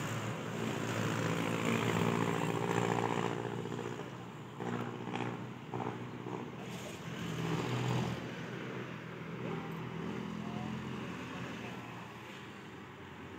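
An engine running with a steady pitched hum, loudest in the first few seconds and fading toward the end, with a few short knocks about midway.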